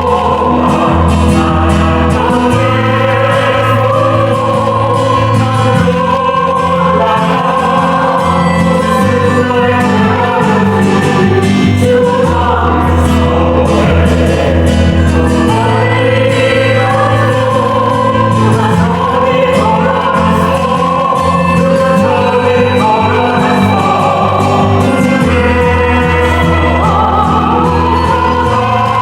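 An ensemble of classically trained singers singing in harmony over an accompaniment with sustained bass notes that change every couple of seconds.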